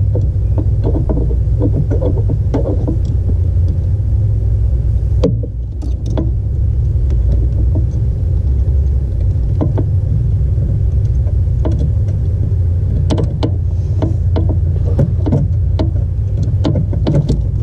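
Steady low rumble with scattered small clicks and taps, likely from the pedal pin and locking clip being handled and fitted.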